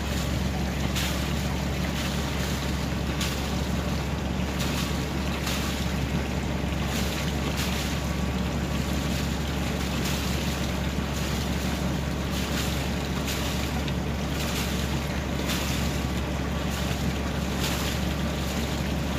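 Boat engine idling with a steady low hum, under a wash of wind and water noise in which brief hisses come and go every second or so.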